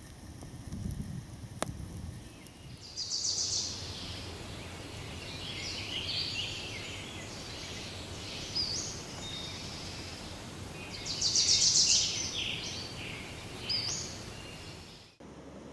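Birds calling in the forest: bursts of rapid, chattering high calls, the loudest about eleven seconds in, over a steady low background rumble. A single sharp pop sounds near the start.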